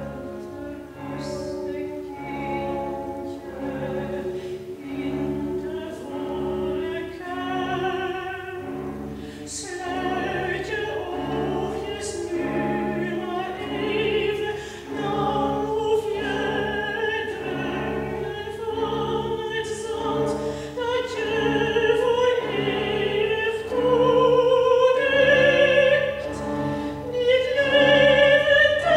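Live classical chamber music: violins, cello and double bass playing with a soprano singing in operatic style. The music grows louder toward the end.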